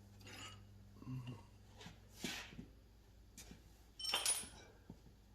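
Faint handling sounds of metal tools and parts: a few short scrapes and light clinks, the clearest about two and four seconds in.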